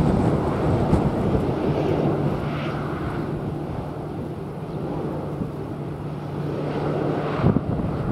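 Airliner jet engines running as the aircraft passes, with a steady low hum in the middle. Gusty wind buffets the microphone near the start and again near the end.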